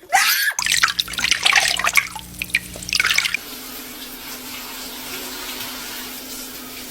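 Water running from a tap, with busy splashing and short high lovebird chirps over the first three seconds or so; after that only the steady run of water.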